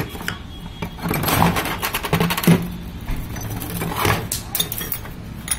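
Metal clicking, clinking and scraping as the gears and synchro rings on a Mahindra Bolero 4x4 gearbox shaft are handled and moved, loudest a second or two in.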